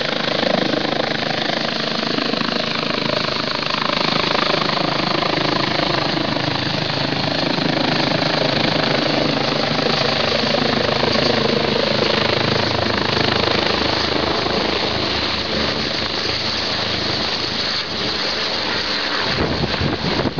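Eurocopter EC-145 twin-turbine helicopter hovering low and close overhead as it takes off: a loud, steady mix of rapid main-rotor beat and turbine whine.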